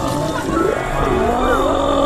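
Background music with a high, wavering cartoon voice effect gliding up and down in pitch, the whimpering of the frightened doodle character.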